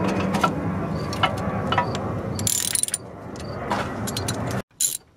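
Ratcheting wrench clicking in a few separate strokes as the 14 mm banjo bolt is backed out of a brake caliper, over a steady low hum; the sound cuts off abruptly near the end.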